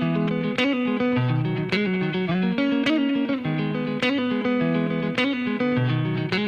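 Background music: the intro of a song, electric guitar playing plucked notes over a bass line, with no drums or vocals yet.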